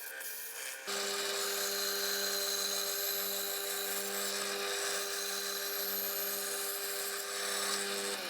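An electric power tool cutting an opening in a wooden side panel. It starts about a second in, runs at an even, steady pitch, and stops near the end.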